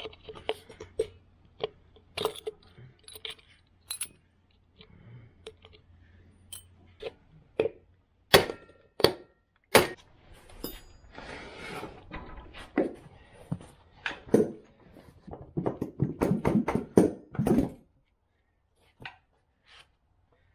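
Sharp metal clinks, clicks and knocks of hand tools working at a garden tractor's rear wheel hub as the wheel is taken off the axle, with tools set down on a concrete floor. A dense run of clattering comes near the end, then it goes quiet.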